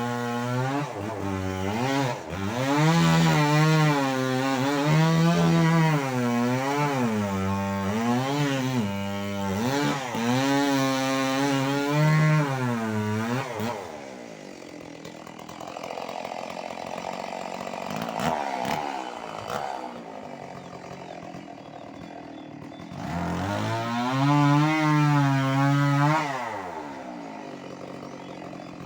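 Stihl MS 381 two-stroke chainsaw revving, its engine pitch rising and falling again and again as it works through the wood of a large durian tree. About halfway it drops to a low idle with a few knocks, then revs up once more for a few seconds and falls back.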